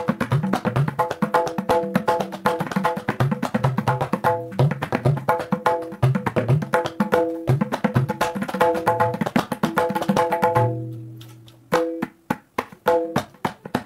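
Tabla played in teentaal: fast strokes on the wooden dayan's ringing pitched head, mixed with deep bass strokes on the metal-bodied bayan. About ten and a half seconds in, a long bass stroke rings out, the playing pauses briefly, and then the fast strokes resume.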